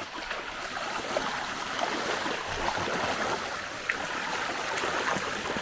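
Water of a shallow, stony stream running and splashing, with scattered small knocks and splashes from barefoot wading over the stones.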